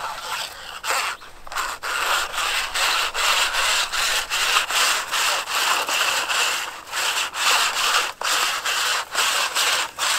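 Stiff fencing wire being pushed by hand into a buried plastic wiring pipe, scraping against the inside of the pipe in a run of rasping strokes, a few a second.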